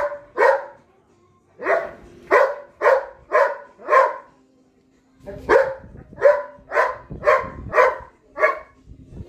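Belgian Malinois barking at a cat: about a dozen loud barks in three quick runs, with short pauses about a second in and about halfway through.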